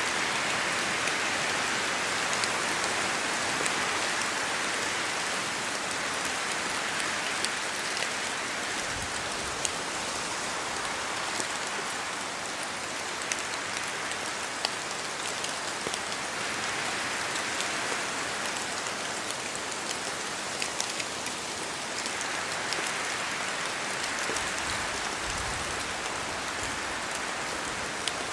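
Steady rain in forest trees, a dense hiss with many separate drops tapping close by. The hiss swells and eases a few times as the wind moves through, with a brief low rumble of wind twice.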